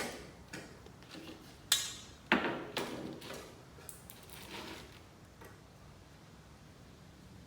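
A few sharp knocks and clatters of hand work with tools and a pipe, the loudest two together about two seconds in, then smaller taps dying away to low room tone.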